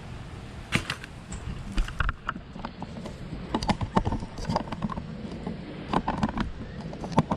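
Irregular knocks, clicks and clinks from the furnace's exhaust blower being handled and tapped to shake out jammed roofing foam, the sharpest knocks about a second in, around four and six seconds in, and near the end.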